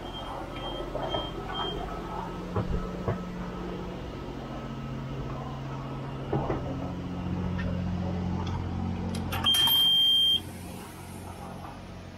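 Electronic beeping from a self-serve car wash's coin-op control box. A run of short high beeps, about two a second, stops about two seconds in, and one long steady beep sounds near the end. Under the beeps runs the steady low hum of the wash equipment, with a few knocks.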